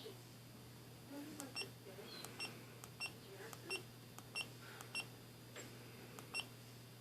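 GoPro Hero 4 Session action camera giving about eight short, high beeps at uneven intervals, with a few faint clicks between them.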